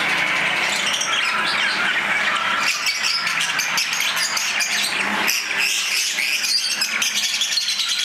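Dense chorus of many caged small parrots and finches chirping and squawking at once, never pausing.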